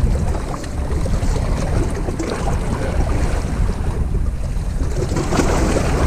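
Wind buffeting the microphone with a steady low rumble, over the wash of choppy sea waves against a rocky jetty.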